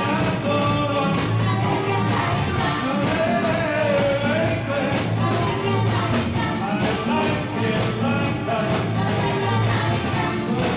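Live dance band playing an upbeat rock-and-roll style song, with a singer over a steady drum beat.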